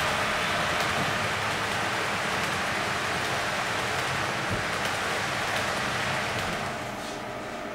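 Long HO-scale model freight train rolling past on the layout track: a steady rushing noise of many small wheels on the rails, easing off slightly near the end.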